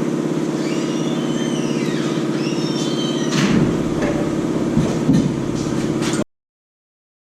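Truck engine idling steadily, with squeaky rubbing sounds that rise and fall over it and two sharp knocks. The sound cuts off abruptly about a second before the end.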